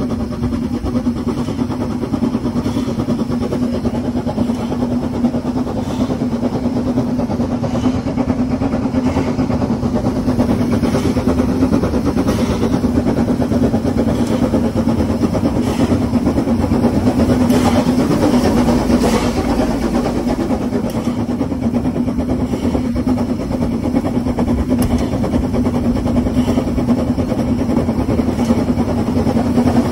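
Narrow-gauge steam locomotive Russell, a Hunslet 2-6-2 tank engine, running along the line, heard from on the locomotive itself: a steady, loud running noise of the engine and wheels on the rails with a constant low hum, growing a little louder in the second half.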